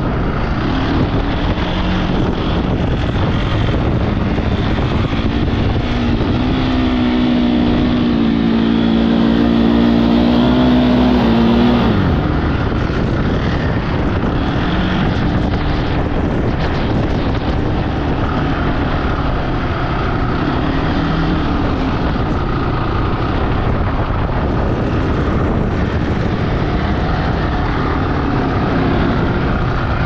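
Honda ATV engine running as the quad is ridden over sand dunes, with heavy wind buffeting the microphone. About seven seconds in the engine note climbs and holds for several seconds, then falls back near the twelve-second mark.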